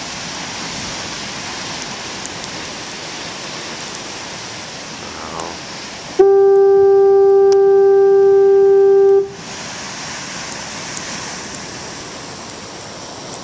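Foghorn sounding one steady blast, about three seconds long, starting about six seconds in and stopping abruptly, over a steady rushing background noise.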